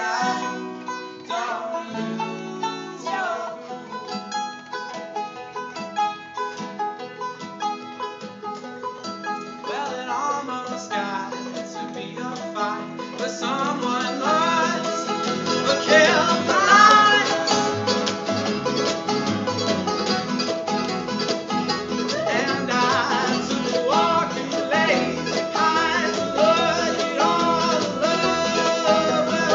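Live band playing an instrumental break with fast picked strings. A low bass part joins about halfway, and bent, sliding notes stand out just after that.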